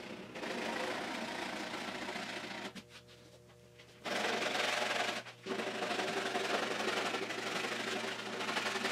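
A hand sanding block scraping back and forth over body filler on a car door panel. It comes in two long spells of rasping, with a pause of about a second and a half about three seconds in.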